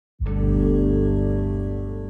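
A low, sustained musical chord that starts sharply and then slowly fades: an audio logo sting.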